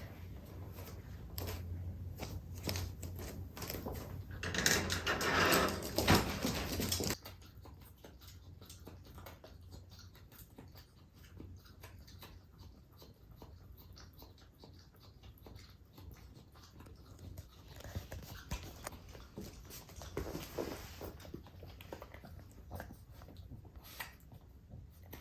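A Boston terrier whining and whimpering to be let out, loudest for a couple of seconds about five seconds in, with many light clicks and knocks throughout.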